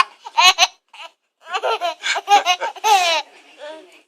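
A young child laughing in several short, high bursts, with a longer wavering laugh about three seconds in.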